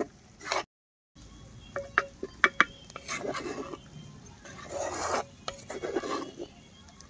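A wooden spatula scrapes and stirs thick masala paste in oil against the inside of an earthenware pot, in irregular rasping strokes. There are a few sharp taps about two seconds in.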